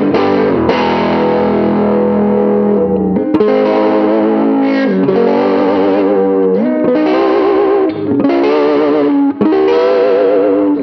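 Custom Gibson ES-330-style fully hollow electric guitar with P-90 pickups played through an overdriven amp at the edge of breakup: loud, distorted chords and sustained notes, with a wide, wavering vibrato on the held notes in the second half.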